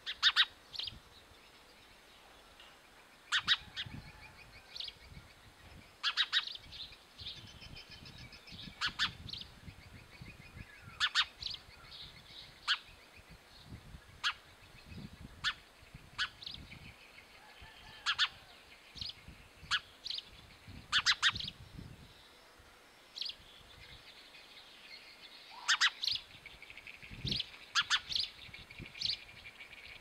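House sparrow chirping: short, sharp cheeps, singly or in quick clusters, every second or two with brief pauses, over fainter twittering.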